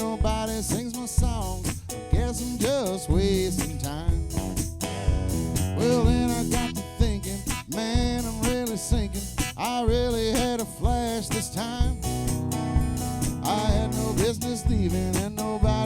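Live country band playing an instrumental break: a lead guitar solo with bending notes over bass guitar and drums.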